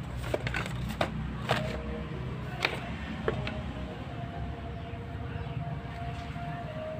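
A handful of sharp clicks over a steady low rumble, with a faint held tone setting in about a second and a half in and shifting pitch slightly near the end.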